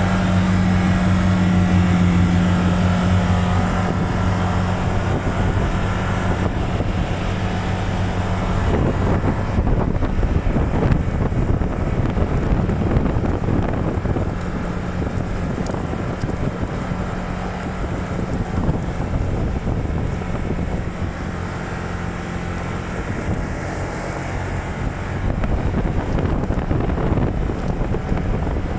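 UTV engine running steadily while driving off-road, its hum under constant wind buffeting on the microphone and rough rolling noise.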